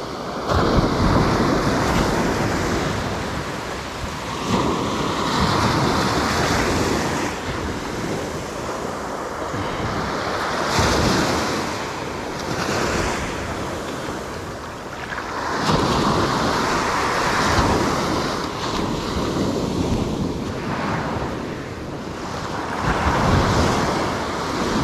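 Small waves breaking and washing up the sand close by, the wash swelling and fading every few seconds, with wind buffeting the microphone.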